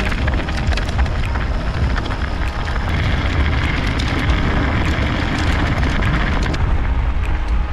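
Wind buffeting the microphone of a bike-mounted action camera during a downhill mountain-bike ride: a loud, steady, deep rumble. Over it comes the rolling noise of the knobby tyres on snow and gravel, with scattered small crunches and clicks.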